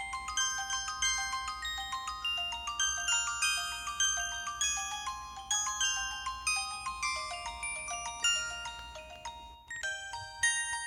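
Samsung SCH-W410 mobile phone ringtone: a quick, bright melody of bell-like, glockenspiel-style notes. It breaks off briefly near the end, and the tune starts again.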